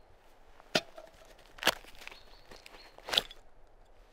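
Gear being handled: three sharp knocks spread about a second apart, with fainter rustling between them.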